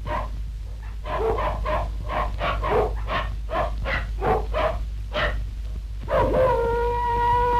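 A dog barking in a quick run of short barks, about three a second, for about five seconds. About six seconds in, a long, steady, slightly falling held tone begins. A low steady hum runs underneath.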